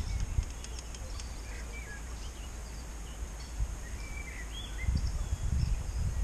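Outdoor ambience of small birds chirping in short scattered calls, over a low rumble that picks up near the end.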